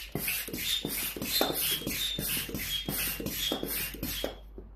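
Air pump inflating the inflatable water bike's float: even rasping air strokes, about four a second, with a faint whistle, stopping shortly before the end.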